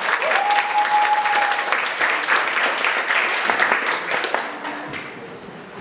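Audience applauding, with a long steady whistle over the clapping near the start; the applause dies away in the last second or so.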